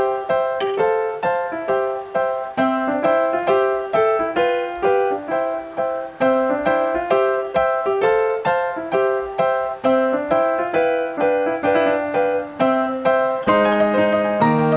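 Background instrumental music: a light, repeating melody of short, evenly paced notes, with lower notes joining near the end.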